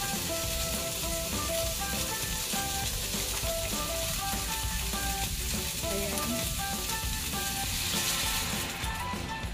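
Pork spare ribs sizzling steadily as they fry in a pan. Near the end, water poured into the hot pan brings a brief louder hiss, and then the sizzle drops away.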